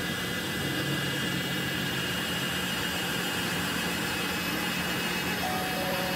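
Makita heat gun running steadily, its fan blowing hot air with an even rushing sound and a faint hum, as it fuses freshly applied beeswax paint in an encaustic painting.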